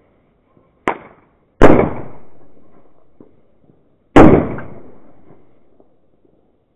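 Firecrackers exploding: a smaller bang about a second in, then two loud bangs at about one and a half and four seconds in, each with a long echoing tail.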